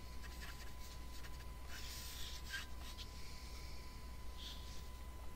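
Coloured pencil scratching across paper in short drawing strokes.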